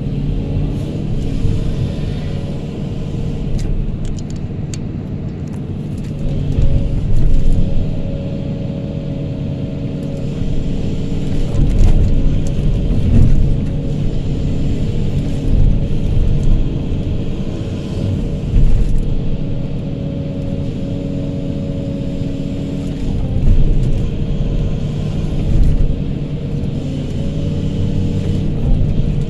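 Kobelco hydraulic excavator's diesel engine running under load, heard from the cab, a heavy steady drone with a steady higher whine. It swells louder several times as the bucket digs and scoops sand.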